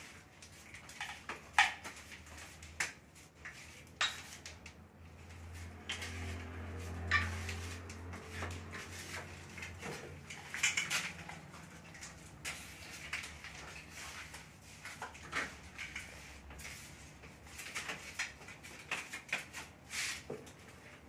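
A hand tool scraping and clicking against ceramic tile along the grout joints, in irregular short strokes. A low hum comes in about six seconds in and fades out some four seconds later.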